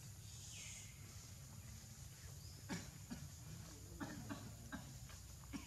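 Faint animal sounds: several short clicks and a few brief low calls from about a third of the way in, over a steady low hum, with one falling high chirp near the start.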